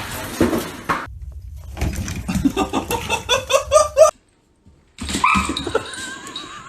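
A dog vocalising in a quick run of short, pitched yaps, which cuts off abruptly. After a brief silence comes more animal vocalising.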